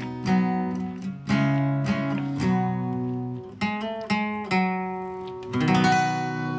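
Solo acoustic guitar music: single picked notes ringing and fading one after another, with a strummed chord near the end.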